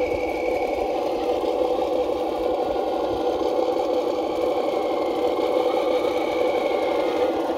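RC CROSS KrAZ-260 6x6 scale truck running slowly, giving a steady, even motor-and-drivetrain drone with a faint thin whine above it.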